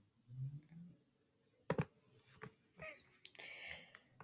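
A few quiet computer mouse clicks, the sharpest a little under two seconds in, with a soft low sound near the start and a short breathy rustle near the end.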